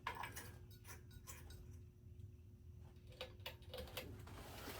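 Faint, scattered clicks and light scrapes of a light bulb being screwed into a ceiling-fan light-kit socket, over a faint steady hum.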